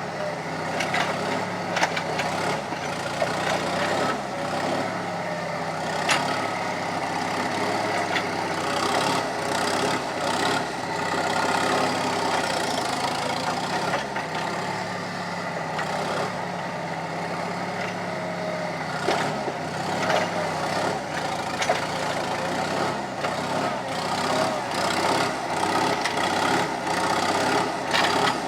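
Skid steer engine running steadily, with a few sharp metallic clanks here and there.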